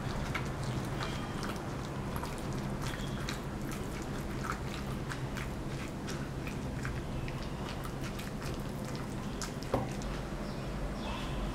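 Silicone spatula stirring a wet mixture of mashed tofu, egg, chopped vegetables and seafood in a stainless steel bowl, making many small irregular clicks and scrapes. There is one sharper knock near the end, over a steady low hum.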